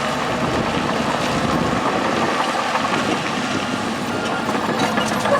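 Heavy earthmoving machinery running steadily, a steady diesel engine noise with no clear revs or impacts.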